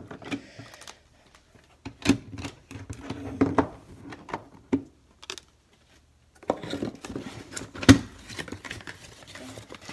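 Hard plastic PSA graded-card slabs clicking and clacking against one another as a stack of them is handled, in two clusters of taps, with one sharp knock about eight seconds in.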